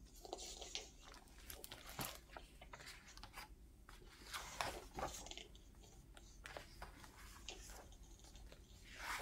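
Quiet paper handling as the pages of a hardcover picture book are turned: several short rustles, scrapes and soft clicks of paper and board.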